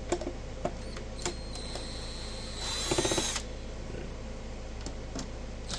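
Power screwdriver spinning briefly, about three seconds in, with a rising whine as it backs out a case screw on an HP frequency counter. A few light clicks of handling come before it.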